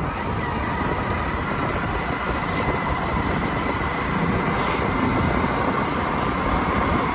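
Steady running noise of a moving road vehicle, with wind rumbling on the microphone and a thin, steady high tone over it.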